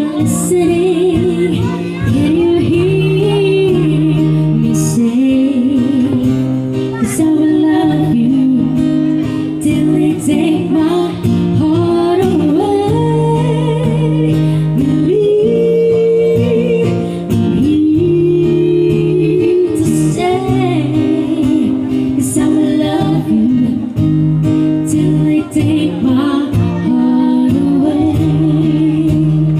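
Acoustic band playing a song: guitar chords under a sung melody line.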